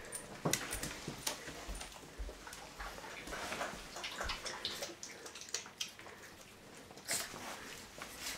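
Boston Terrier drinking from a bowl: a run of irregular wet lapping clicks, with a louder cluster about seven seconds in.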